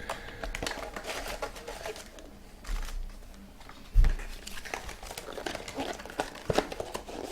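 Foil trading-card pack wrappers crinkling and tearing, with cards rustling as they are handled, and a single thump about four seconds in.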